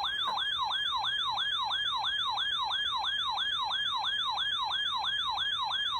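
Weather radio receiver sounding its alarm siren after being triggered by the alert header: a fast, steady electronic wail that sweeps down in pitch about four times a second.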